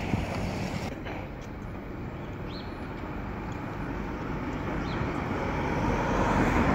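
Steady outdoor background noise, a low rumbling haze that grows louder near the end, with a few faint short high chirps.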